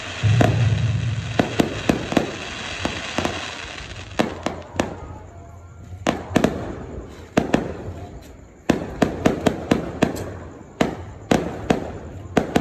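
Aerial fireworks bursting overhead: a deep boom about half a second in followed by a crackling hiss, then a string of sharp bangs and crackles, densest in the last few seconds.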